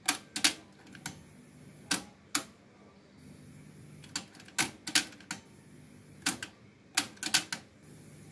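Sharp mechanical clicks from the Sony TC-K77R cassette deck's transport buttons and mechanism as its functions are switched one after another, about fifteen clicks in irregular clusters. A high tape hiss stops and starts again between some of them.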